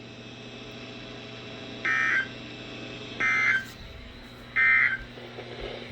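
NOAA Weather Radio SAME end-of-message data bursts: three short, buzzy digital bursts about 1.4 s apart, marking the end of the warning, over faint receiver hiss and a steady hum.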